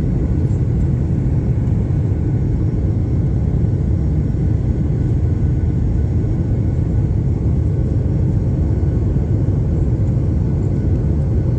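Airliner cabin noise during takeoff: a steady, heavy low rumble of engines and airflow heard from inside the cabin, with faint steady whine tones above it.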